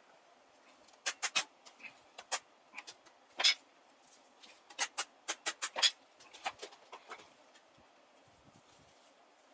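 A run of about twenty sharp clicks and taps in irregular clusters, starting about a second in and stopping near the end.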